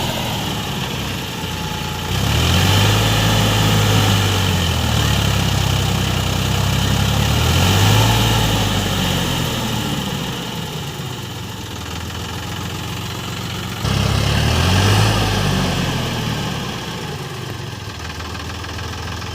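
JCB 3DX backhoe loader's diesel engine revving up under load twice, about two seconds in and again near fourteen seconds, each time holding high for a few seconds before dropping back to idle.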